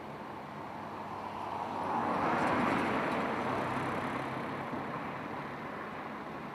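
A car, a people carrier, drives past: its tyre and engine noise swells over about two seconds, peaks near the middle, then fades as it moves away, over a steady background hiss.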